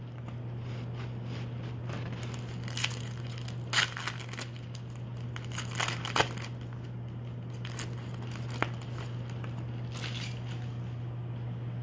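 Foil trading-card pack wrapper crinkling and tearing as it is torn open and handled, in several short bursts. A steady low hum runs underneath.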